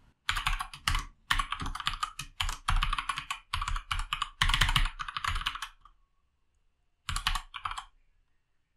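Typing on a computer keyboard: a quick, steady run of keystrokes for about six seconds, a pause, then a short second flurry of keys near the end.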